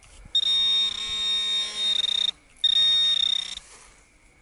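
Metal detector sounding a steady, high electronic target tone in two stretches, about two seconds and then about one second long, as it is passed over a buried piece of aluminium wire.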